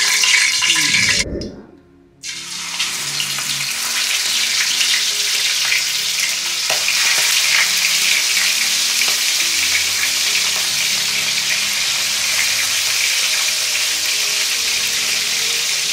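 Marinated chicken pieces sizzling in hot oil in an aluminium wok: after a brief hiss and a short gap near the start, a loud, steady frying sizzle sets in about two and a half seconds in and holds.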